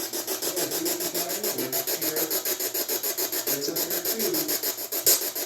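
Electronic ghost-hunting device giving a steady, fast pulsing hiss of about eight pulses a second, with faint wavering tones underneath. There is a brief louder crackle about five seconds in.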